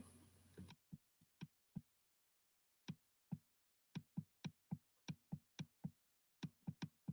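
A string of faint computer mouse clicks, about eighteen, unevenly spaced with a short pause about two seconds in, as the back arrow is clicked repeatedly to page back through an online storybook.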